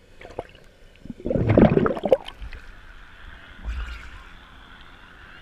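Seawater sloshing and gurgling around a GoPro camera as it dips under the surface and comes back up, with a loud burst of splashing about a second in. Weaker sloshes follow over a steady faint hiss.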